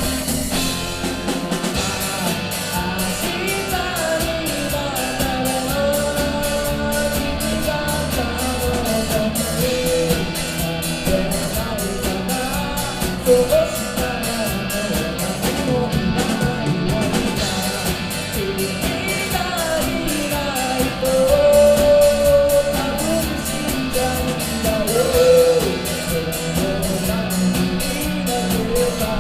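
Live rock band playing a Japanese pop-rock cover, with drums, electric guitar, bass and a sung melody.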